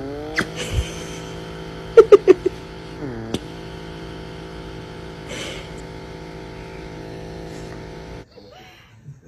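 Small electric pet nail grinder whining steadily, its pitch sagging briefly twice as the dog's nose and mouth press on the spinning tip. A few sharp knocks come about two seconds in. The motor cuts off near the end.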